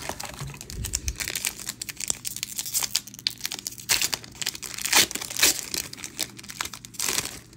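Foil wrapper of a Magic: The Gathering booster pack crinkling and tearing as it is opened: a dense run of sharp crackles and rustles.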